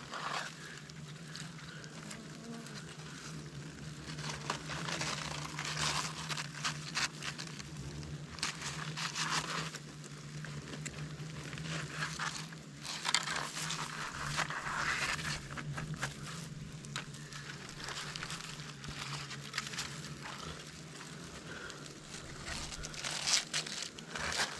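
Irregular crackling and rustling as a dug-out hornet nest's papery comb and the mud packed around it are handled and broken apart, over a steady low hum.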